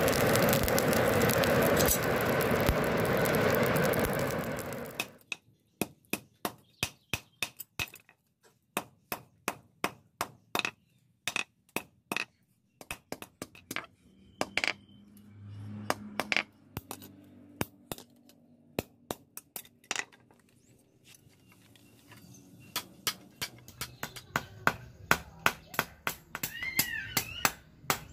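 A forge blower runs steadily for about five seconds and then cuts off. A hand hammer then strikes the hot steel blade, forged from a motorcycle disc brake rotor, on the anvil in quick runs of sharp blows, about two or three a second, with a pause before a final louder run.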